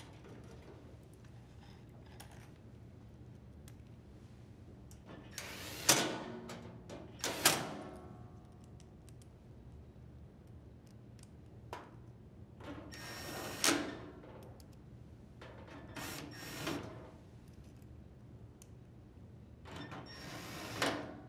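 Cordless drill driver with a Phillips bit driving screws into the sheet-metal bracket on the back of an LG electric dryer, running in about five short spells of a second or so each, with pauses between.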